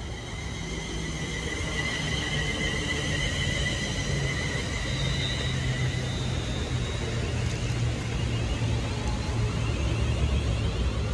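London Northwestern Railway Class 350 Desiro electric multiple unit running past at a station platform. Its traction equipment gives a steady high electric whine of several tones over a low rumble; the highest whine fades about halfway through.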